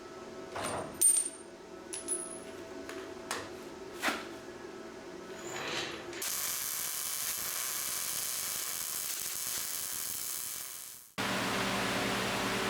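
Metal parts and tools clinking in a shop, several sharp knocks with a high metallic ring. About six seconds in, a steady high hiss takes over, and near the end the sound cuts suddenly to a louder steady noise.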